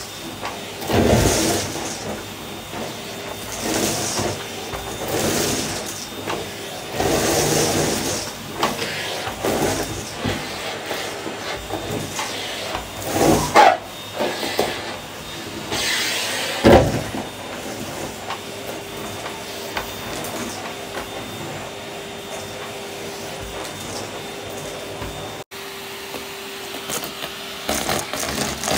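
Henry cylinder vacuum cleaner running on carpet, sucking up foam bits, confetti and balloon scraps, with uneven surges as clumps are pulled into the nozzle and hose. It runs steadier about two-thirds of the way through, once the floor is mostly clear.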